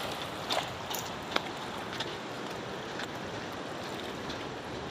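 Steady rush of a fast-flowing river running over rocks. A few brief sharp sounds stand out over it in the first two seconds, the loudest about one and a half seconds in.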